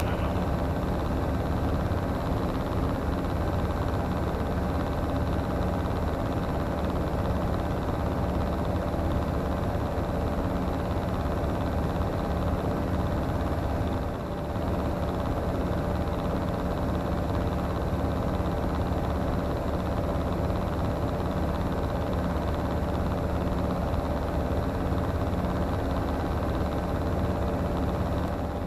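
Comco Ikarus C42C microlight's engine and propeller running steadily at cruise power, smooth, with no stutter or cough. The level dips briefly about halfway through.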